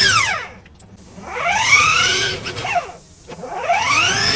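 Remote-control toy car's electric motor whining, rising and falling in pitch about every two seconds as it is revved up and let down.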